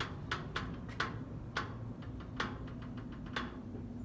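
A string of irregular sharp clicks and light knocks, about two to three a second, over a steady low hum.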